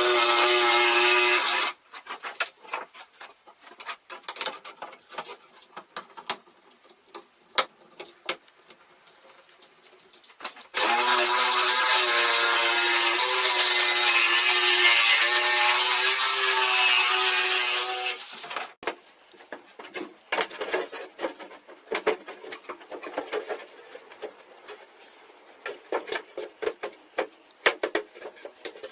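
A power tool running steadily at one pitch, first briefly and then for about eight seconds, with scattered clicks and knocks of handling work between and after the runs.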